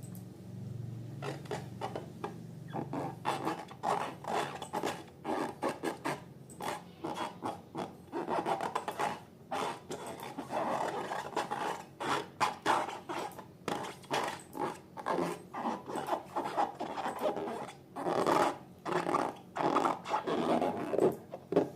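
Slime being mixed and squished, a quick irregular run of sticky rubbing squelches, a few each second, growing busier after the first few seconds.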